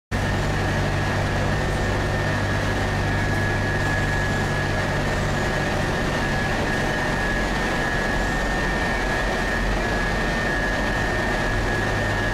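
Steady engine and road noise heard inside a moving vehicle's cabin, with a low hum and a thin, steady high whine over it.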